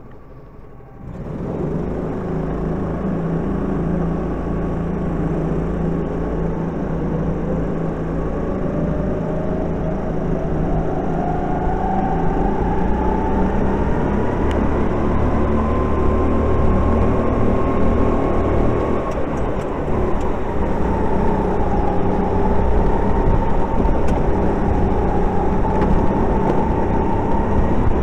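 Kart engine pulling away, its note climbing steadily over several seconds and then holding at high revs with small dips, amid other karts running close by.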